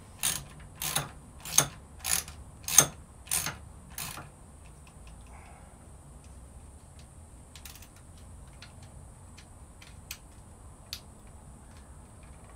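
A bolt being tightened into a chainsaw's housing with a hand tool: about seven sharp clicking strokes, roughly two every second, over the first four seconds, then only a few faint ticks.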